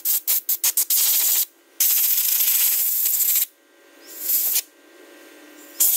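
Compressed-air blow gun blasting caked dirt off an old Stihl 015 chainsaw's engine around the carburetor. It gives a string of quick short hisses, then two long blasts, a softer one, and a quick burst again near the end.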